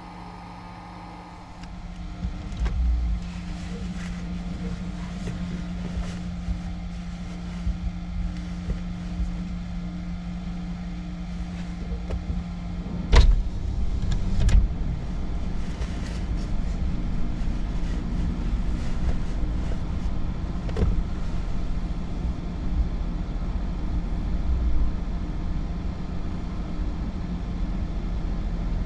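A car in motion: a low road rumble over a steady hum, with two loud clunks about a second and a half apart near the middle. This fits a vehicle rolling aboard the ferry, its wheels knocking over the ramp joints.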